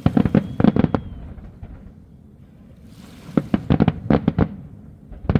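Fireworks going off in quick runs of sharp cracks. About six come in the first second, a run of about eight follows between three and a half and four and a half seconds in, and one more comes near the end.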